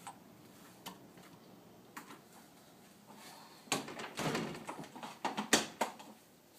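A few faint clicks, then a burst of knocks and clattering lasting about two seconds, loudest near the end.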